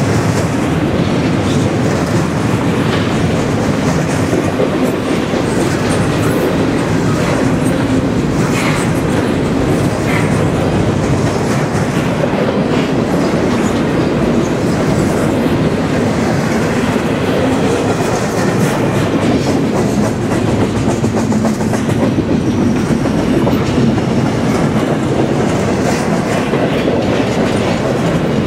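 Double-stack container train's well cars rolling past: a steady rumble of steel wheels on rail, with continuous clickety-clack from the wheels.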